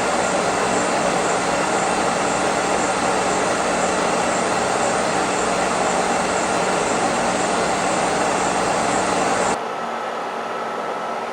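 Kearney & Trecker horizontal milling machine running, with a boring head on its horizontal spindle taking a cut in a counterbore: a loud, steady machine noise with a steady hum in it. About nine and a half seconds in, the sound drops suddenly to a quieter, duller hum.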